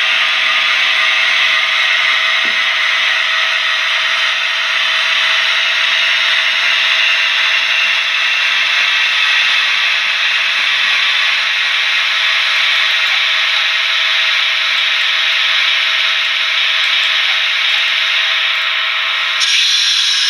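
Model Ce 6/8 Crocodile electric locomotive running along the track: a steady whirring motor and rolling wheels on the rails, with a higher hiss added suddenly about a second before the end.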